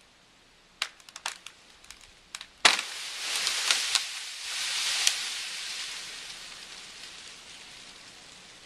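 A snow-loaded tree limb breaking: a run of sharp cracks, then a loud snap and a long rushing crash of branches and snow coming down, fading over several seconds.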